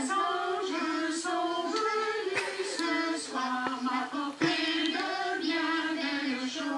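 A small group of women singing a slow tune together in long held notes, heard through a television's speaker.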